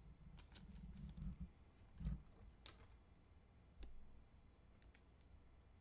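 Near silence with faint handling noise from trading cards being sorted by hand: a soft thump about two seconds in and a sharp click shortly after.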